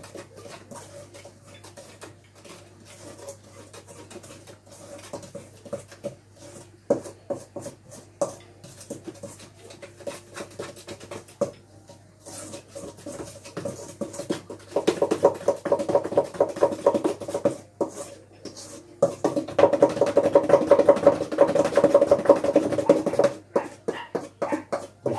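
A spoon beating cake batter in a stainless steel mixing bowl: fast, rhythmic scraping and tapping. It is light at first, then comes in two long, louder bouts of quick beating in the second half.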